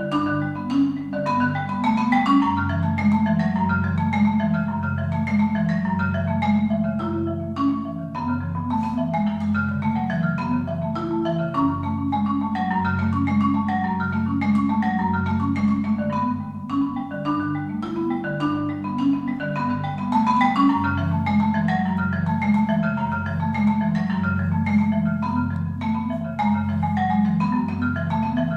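Solo concert marimba played with mallets: a continuous stream of quick struck notes over low bass notes that ring on beneath them, with no break.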